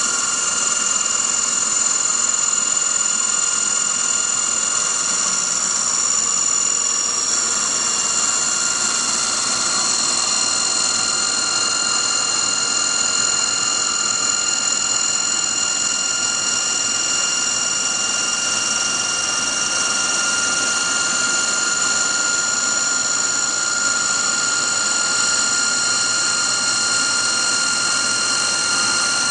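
CNC baseball-bat turner at work: its saw blade spins at high speed inside the dust hood, cutting the rotating wooden bat blank. A steady high whine rides over a constant rushing noise.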